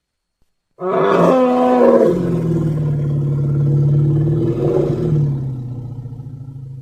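An elephant's long, low call starting about a second in: loud at first with a rich, buzzing pitch, settling into a steady low tone that slowly fades.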